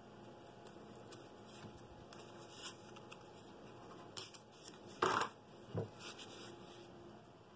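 Hands pressing and rubbing blue painter's tape down onto a wooden board, a quiet run of rustles and scuffs, with one louder short sound about five seconds in.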